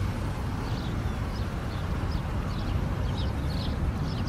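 Small birds chirping repeatedly over a steady low rumble.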